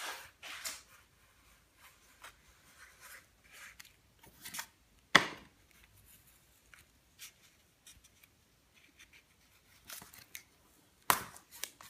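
Tape being pulled from the roll, torn off and pressed down by hand: short scratchy rasps, with two sharp snaps about five seconds in and near the end.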